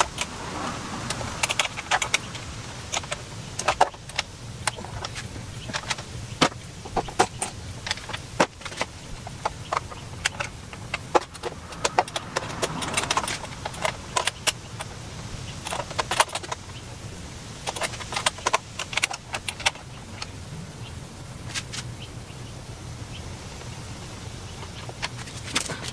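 Irregular metallic clicks and clinks of a 10 mm wrench working the screws that hold a motorcycle's rear fender, scattered unevenly, over a steady low hum.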